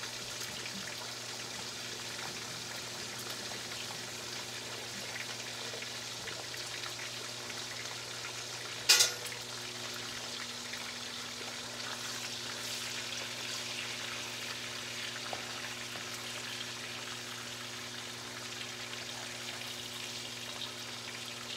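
Bacon frying in a cast-iron skillet, a steady sizzle and crackle, with one sharp knock about nine seconds in.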